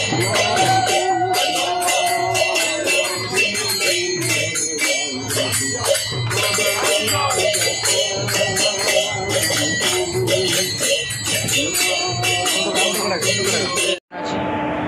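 Music with a steady beat, jingling metal percussion and a wavering melody line. It cuts off abruptly about a second before the end, giving way to a steady hum with one constant tone.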